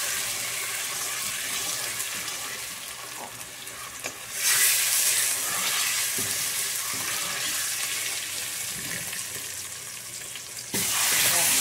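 Pork leg sizzling as it is seared in caramelized sugar and oil in a stainless steel pan, with tongs scraping and turning the meat. The sizzle swells suddenly about four seconds in and again near the end.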